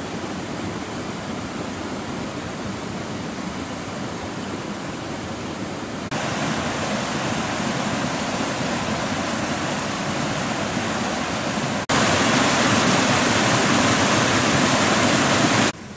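Swollen, muddy river rushing fast over rocks: a steady rush of water that jumps louder twice, about six and twelve seconds in, then drops off just before the end.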